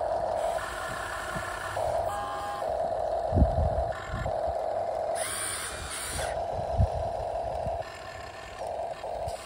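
Scale RC construction vehicle's electric drive and sound unit whining in on-off spurts of about a second as it is worked, with a couple of dull knocks.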